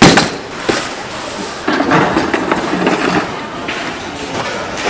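A sharp thump as a cardboard box of frying powder is set down on the counter, then a lighter knock and mixed handling noise.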